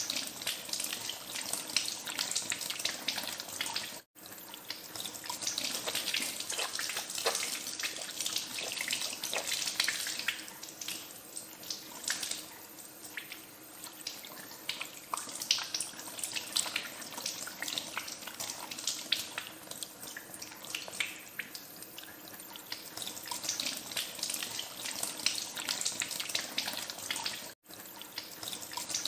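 Tap water running into a sink with irregular splashing as hands are washed under the stream. The sound cuts out for an instant twice, about four seconds in and near the end.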